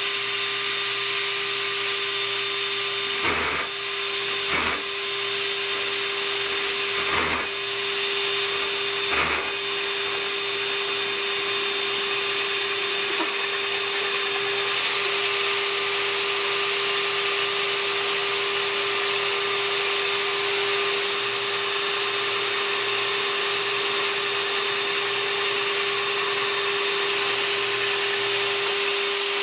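Drill press driving a large hole saw down through a clamped plywood board and a walnut and red oak blank, with a shop vacuum running and its hose at the cut; a steady machine whine throughout. Four short knocks come in the first ten seconds, as the blade flexes and wanders when it first bites into the wood.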